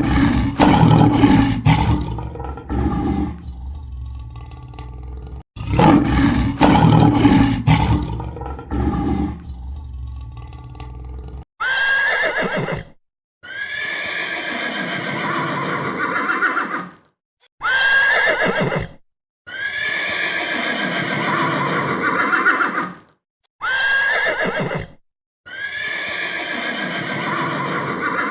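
Two long, deep lion roars about six seconds apart, followed by a horse whinnying, the same neigh repeated three times with abrupt cuts between.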